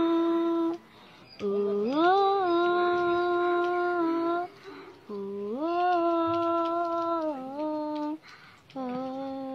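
A child's solo voice singing long, wordless held notes, each phrase sliding up at its start and then held steady, with short breaths between phrases.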